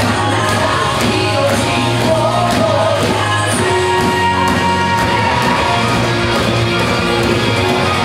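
Wrestlers' rock entrance theme with a singing voice and a steady drum beat, played loud over the hall's speakers.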